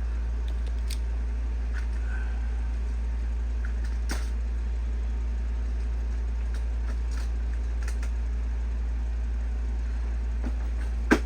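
Steady low hum with a few faint clicks and one sharp click near the end, from small die-cast model cars being handled.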